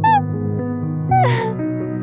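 Gentle background music with long held notes, and a crying girl's short falling sobs, once at the start and again about a second in.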